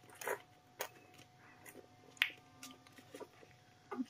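Young puppy suckling at a feeding-bottle nipple: a few faint, short wet smacks and sucking clicks at uneven intervals, the loudest about two seconds in.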